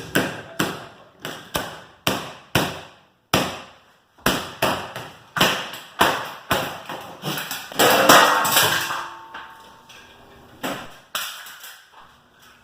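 A stapler being struck hard over and over: a rapid string of loud knocks and bangs, about two a second, bunching into a longer clatter past the middle, then a few last hits.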